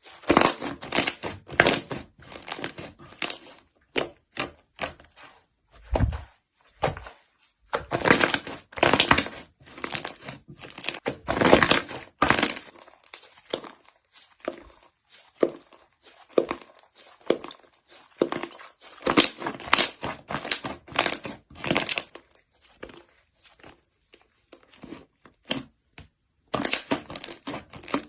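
Slime being squeezed, pressed and poked by hand, making clusters of wet crackling and popping clicks with short pauses between.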